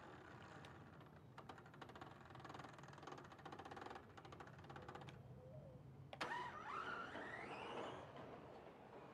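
Electric RC drag car's brushless motor: a soft, fast-ticking whir at low power for a few seconds, then about six seconds in a sudden launch at full throttle with a rising whine that fades over the next two seconds as the car runs away.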